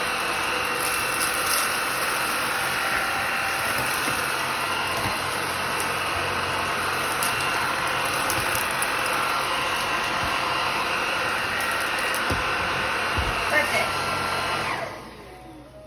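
Womow W20 cordless stick vacuum running steadily with a high motor whine as it sucks up dirt from a hard kitchen floor, with small ticks of debris and a few knocks. Near the end it is switched off and the motor winds down.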